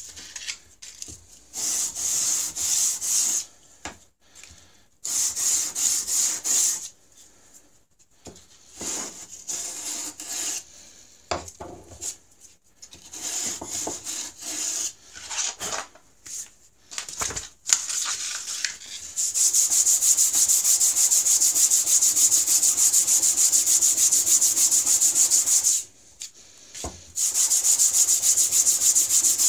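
A water stone being rubbed back and forth on sandpaper to flatten its dished face, a gritty scraping. The strokes come in short irregular spurts at first, then settle into a fast, steady back-and-forth about two-thirds of the way in, stop briefly and start again.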